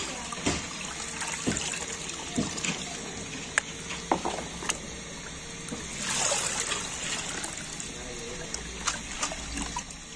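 Starchy liquid dripping and trickling from a metal colander of noodles into a tub of liquid, with scattered small drips and a heavier trickle about six seconds in.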